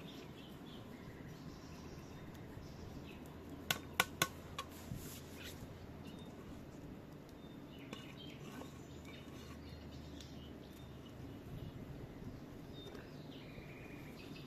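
Kitchenware knocking against a cooking pot: three sharp clinks about four seconds in, then a few lighter taps. Faint bird chirps sound throughout.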